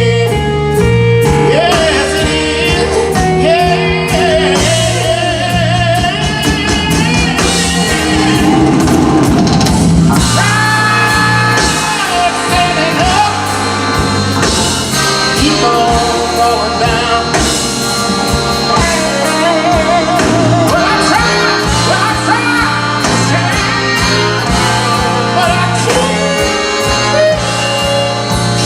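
A live blues band with a horn section, guitar, keys, bass and drums playing, with singing over it.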